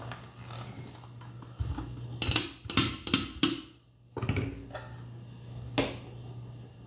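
Stainless-steel bowls knocking and clinking together as chunks of butter are tipped from a small metal bowl into a stand mixer's steel bowl: a quick run of knocks about two seconds in, then two more single knocks.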